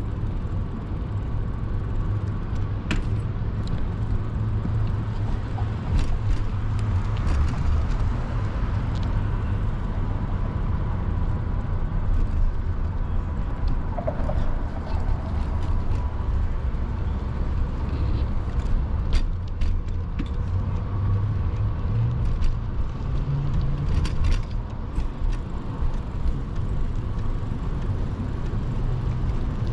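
Street traffic and road noise heard from a moving bicycle on a city avenue. A steady low rumble is broken by a few sharp clicks.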